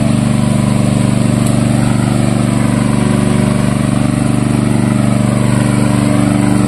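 Portable petrol-engine water pump running steadily, pumping water out through its discharge hose.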